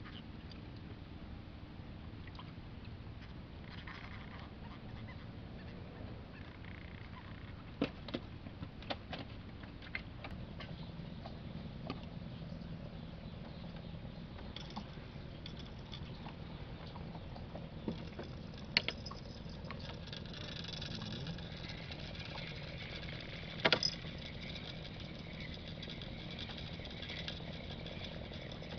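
A low, steady engine hum, a little stronger in the second half, with a few sharp knocks and clicks scattered through. The loudest is a short double knock about three-quarters of the way in.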